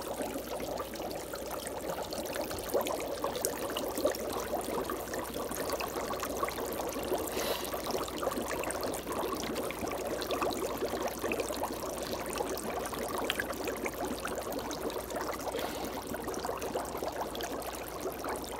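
Chopped dry ice bubbling steadily in a sink of cold water, a dense even patter of bubbles as the frozen carbon dioxide turns back to gas.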